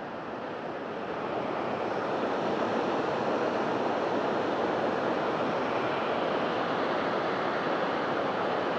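Heavy water rushing at a dam, a steady noise that swells over the first second or so and then holds level.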